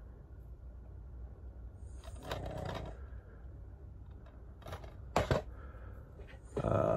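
Plastic DVD cases being handled: a short rustle about two seconds in, a sharp click about five seconds in, and louder handling near the end.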